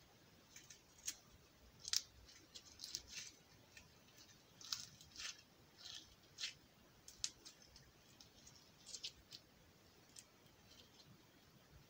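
Slime being squeezed and kneaded in the hands: faint, irregular little squishes and clicking pops as it is pressed and pulled.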